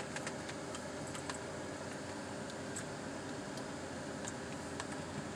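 Steady road and engine noise inside a car's cabin while driving slowly, with scattered light ticks and clinks.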